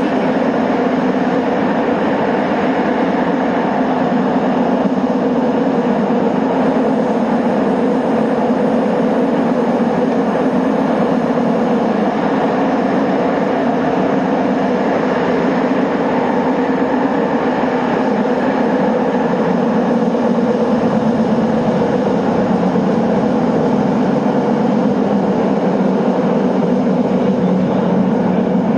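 Subway train running steadily between stations through a tunnel, heard from inside the front car: an even, continuous rumble of wheels on rail and running gear.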